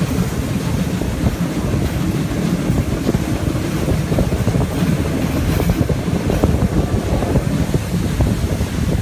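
Steam-hauled passenger train running along the track, heard from an open carriage window: a steady rumble of wheels on rail with scattered clicks, and wind buffeting the microphone.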